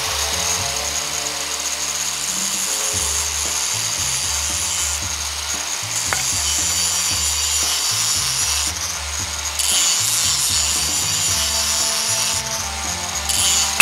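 Angle grinder cutting into metal on a motorcycle engine: a steady, high grinding hiss that dips briefly a few times, ending in a sharp crack. Low background music runs underneath.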